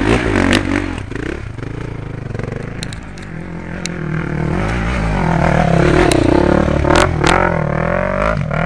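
Off-road motorcycle engines revving, their pitch rising and falling with the throttle and getting louder from about four seconds in. Two sharp knocks come near the end.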